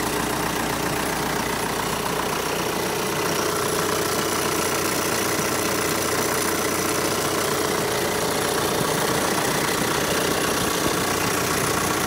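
The 1.9 TDI four-cylinder turbodiesel engine of a 2003 VW Golf idling steadily.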